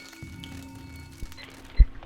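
Music: a steady low held note over a low rumble, with one heavy thump near the end.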